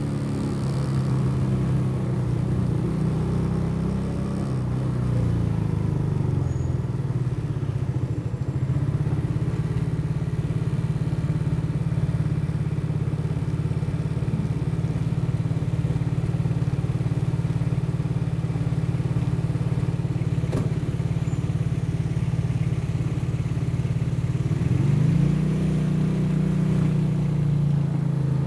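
Motorcycle engine running under way, with a steady engine note. The pitch drops about four seconds in and picks back up a few seconds later, then rises again near the end as the bike accelerates.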